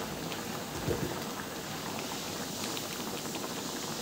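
Water boiling hard in an aluminium wok of mustard greens: a steady bubbling hiss with faint small pops.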